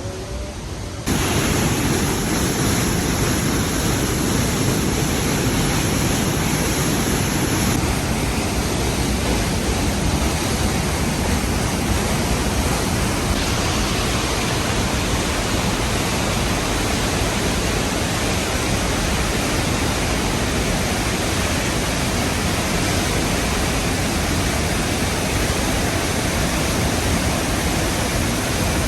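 Trümmelbach Falls, glacier meltwater cascading down through the rock inside the mountain: a loud, steady rush of falling water that comes in suddenly about a second in.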